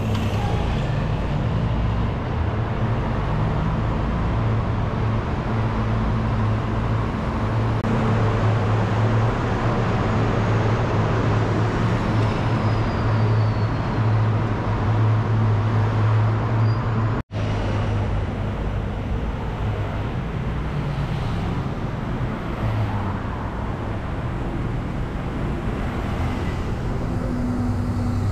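Street traffic of city buses and cars passing, with a steady low engine hum. There is a brief break about two-thirds of the way through.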